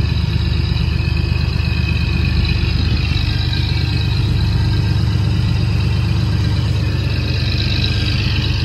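Lobster boat's engine running steadily at slow speed, a low pulsing rumble, with a rope fouled on its propeller that makes the boat shake.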